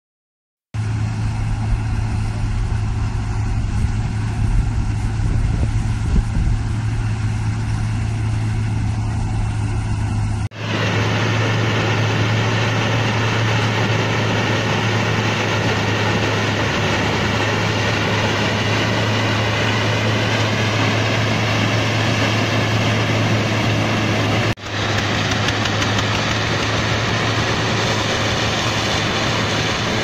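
Self-propelled corn silage harvester running steadily while cutting and chopping corn stalks, with the engine of the tractor pulling the trailer alongside, a steady loud engine hum. The sound starts a moment in and changes abruptly twice.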